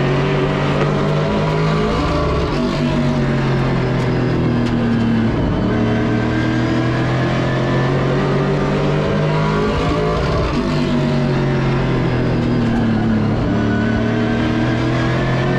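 Pro Late Model race car's V8 engine running at racing speed, heard from inside the cockpit. The engine pitch falls about two seconds in and again about ten seconds in as the driver eases off for the corners, then rises again back on the throttle.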